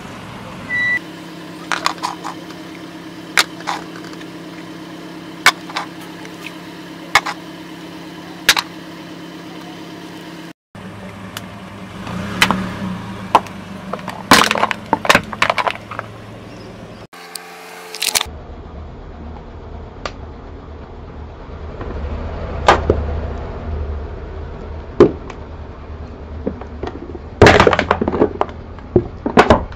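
Hard plastic bowls cracking and snapping one after another under a slowly rolling car tyre, with the loudest run of cracks near the end. A steady low engine hum runs under the first third.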